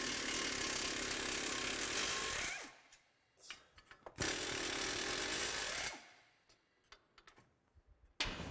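Ingersoll Rand half-inch air ratchet spinning out the 15 mm front brake caliper bolts, in two runs of about two and a half and two seconds, with light clicks of handling in the pause between.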